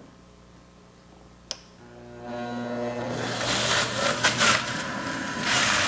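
Breville multi-speed juicer switched on at its soft-fruit speed: a click about a second and a half in, then the motor whines up in pitch. From about three seconds in there is a loud, rough whir as the spinning cutter shreds cantaloupe pushed down the feed chute.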